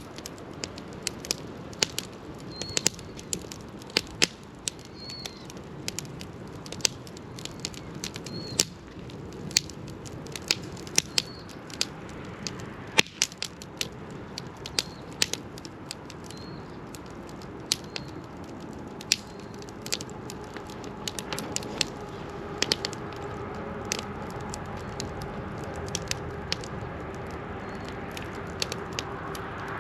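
Wood fire burning in a fire pit, crackling with frequent sharp, irregular pops. A faint steady tone comes in about two-thirds of the way through.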